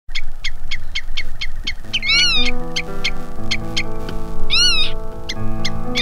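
Background music track: a steady ticking beat, about four ticks a second, joined about two seconds in by held sustained chords. Twice, near 2 s and again near 4.5 s, a pitched call rises and falls over the top.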